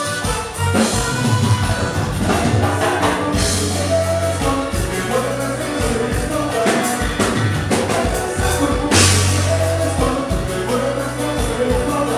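A Tejano band playing live with a heavy bass and drum beat, keyboards and a lead vocal, loud and continuous.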